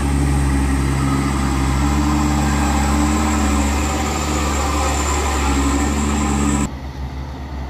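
Mitsubishi Fuso Canter light truck's diesel engine running steadily as the loaded truck creeps past at close range, a deep drone with a thin high whine above it. The sound drops away abruptly near the end.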